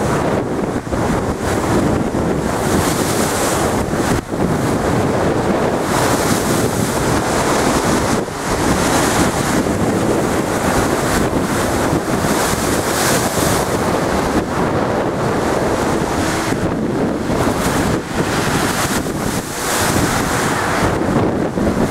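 Rough stormy sea surging and breaking against a sea wall, with strong wind buffeting the microphone. The wash of surf swells up every few seconds over a steady loud rush.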